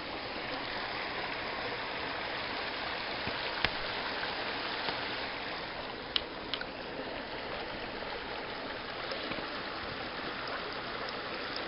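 Shallow mountain stream running steadily over rocks at the top of a waterfall, with a few brief knocks about a third and halfway through.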